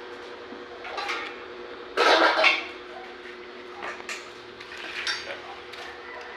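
Clattering and clinking of hard objects, a few separate knocks with one louder rattle about two seconds in, over a steady hum.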